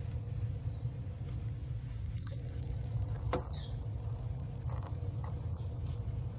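Steady low background hum with a few small clicks and scratches, one sharper click about three seconds in, as hatchling spiny-tailed iguanas clamber over a ceramic dish of mealworms.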